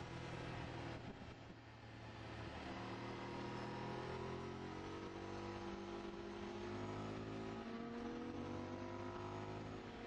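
Sport motorcycle engine heard from on board, rising in pitch as it pulls up through the revs under acceleration. The throttle eases briefly about a second in, and there is a gear change near the end, all over a steady rush of wind noise.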